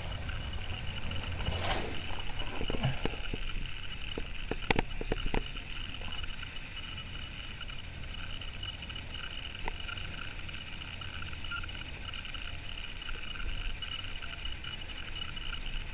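Low rumble and hiss of a handheld camera's microphone being moved about, with a short run of sharp clicks and knocks about three to five seconds in.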